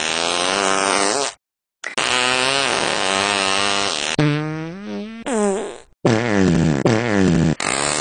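A series of long, loud fart noises, a buzzing, wavering blare spliced together with abrupt cuts. There is a brief silence about a second and a half in, and a thinner, squeakier stretch that falls in pitch around the middle.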